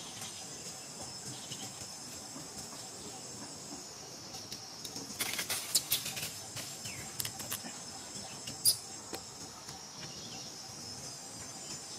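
A steady, high-pitched insect chorus. About five seconds in there is a brief flurry of sharp clicks and crackles, and near the end a single short, sharp high chirp stands out.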